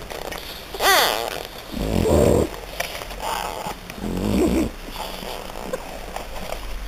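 French Bulldog puppies crying and grunting: a high squeal falling in pitch about a second in, a lower cry around two seconds, and another whimper around four seconds, with soft shuffling and suckling noises between.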